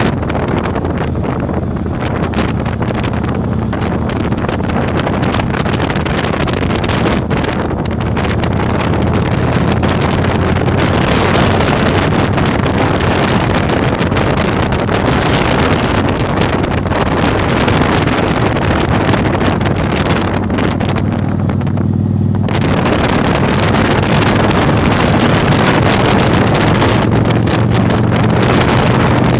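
Heavy wind buffeting on the microphone while riding a Yamaha Virago 1100, with the motorcycle's V-twin engine running steadily underneath. The wind rush eases briefly about three-quarters of the way through, then returns abruptly.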